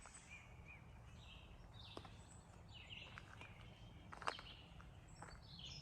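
Near silence outdoors, with faint, scattered birdsong chirps and a few soft clicks, the clearest one about four seconds in.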